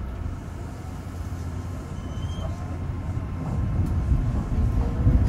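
Rubber-tyred automated guideway train pulling away, heard from inside the front car. A low running rumble builds steadily louder, and a motor whine begins to rise near the end as it gathers speed.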